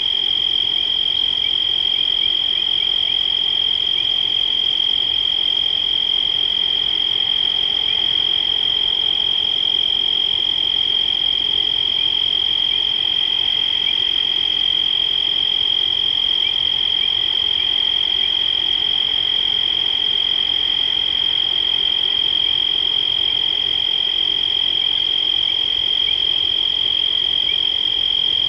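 Night chorus of frogs and insects at a watering hole, merging into one steady, unbroken high-pitched tone. Short chirps come and go over it.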